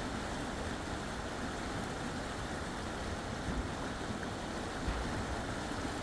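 Shallow creek water rushing steadily over a fallen log and a gravel bed, an even, constant sound of flowing water.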